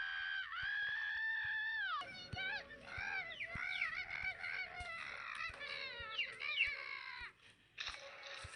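High-pitched cartoon voice screaming: one long held scream, then a string of shorter wavering, sliding cries that stop about seven seconds in.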